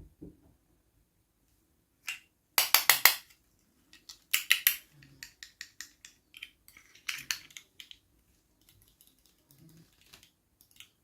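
Small plastic packaging and toy pieces being handled: crackling rustles and clicks that come in bursts, the loudest about three seconds in.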